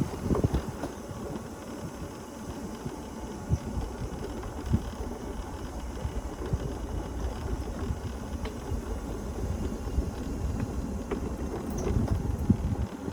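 Mobility scooter driving along: a steady low rumble from its motor and wheels on the road, with small rattles here and there.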